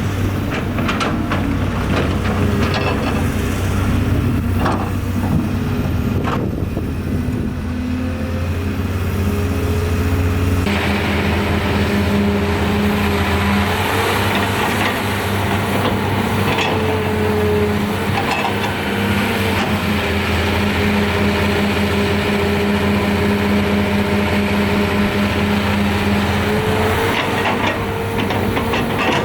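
Heavy diesel engines of an excavator and dump truck running steadily at work, with a few sharp knocks in the first seven seconds. About eleven seconds in, the sound changes suddenly and grows harsher.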